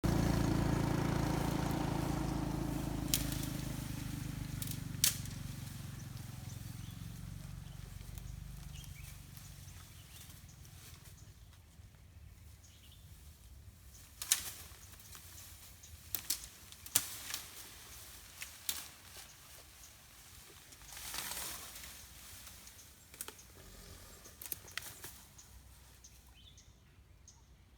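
An elephant feeding on vegetation, with sharp snaps and cracks of stems and branches breaking at irregular intervals and a brief rustle about two-thirds of the way through. At the start a low droning sound fades away over several seconds.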